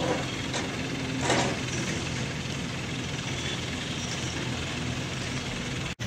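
A mobile crane's engine idling steadily with a constant low hum, plus a brief louder burst of sound about a second in.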